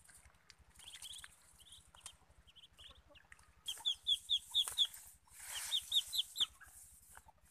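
Muscovy ducklings peeping: scattered high peeps at first, then two quick runs of loud, high peeps, about four seconds in and again near six seconds.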